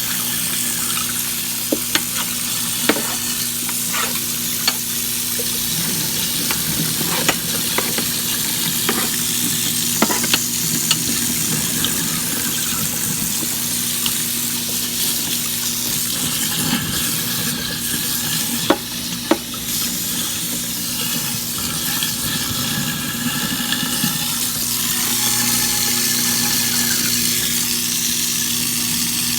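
Kitchen sink garbage disposal running on old cheese dip: a steady motor hum under running water, with scattered clicks and knocks from inside the grinding chamber.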